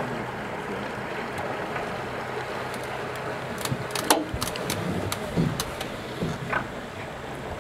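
Steady low hum of an idling boat motor over water noise, with a handful of short sharp clicks in the middle, the loudest about four seconds in.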